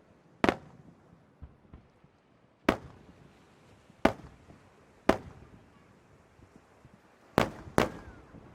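Fireworks shells bursting overhead: six sharp bangs at uneven intervals, each with a short rumbling echo, the last two in quick succession near the end.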